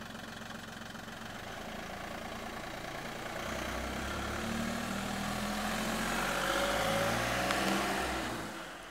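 Car engine idling, then the car pulls away: the engine note rises and grows louder midway and fades near the end as it drives off.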